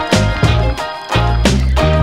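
Background music with a steady bass line and beat.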